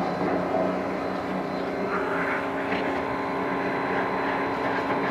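High-pressure washer running steadily: an even motor drone with a hiss over it.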